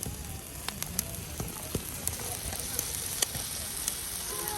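Wood fire burning in a fire pit: a steady hiss with scattered sharp crackling pops.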